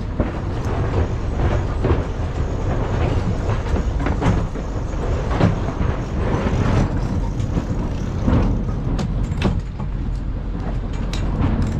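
Steady rumble of wind and water noise aboard a sailing yacht under way. Near the end come a few sharp clicks as a sheet winch is cranked with its handle.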